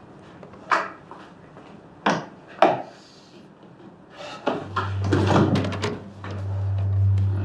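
Three footsteps on a hard floor, then the rustle and creak of a leather office chair as someone sits down heavily. A low, steady music drone comes in just past halfway.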